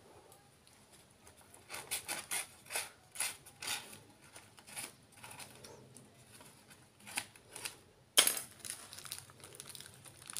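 Brown paper wrapping being torn by hand and slit with a knife: a quick run of short rips and rustles, then scattered smaller ones, with the loudest rip about eight seconds in.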